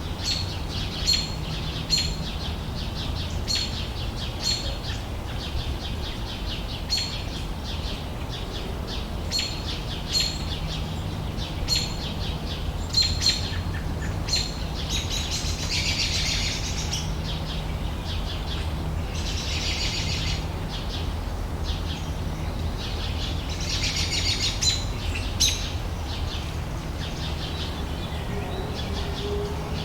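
Outdoor summer ambience: a bird repeating short, high chirps about once a second, joined three times by longer trilling phrases of two to three seconds each. Underneath is a steady low rumble with a faint hum.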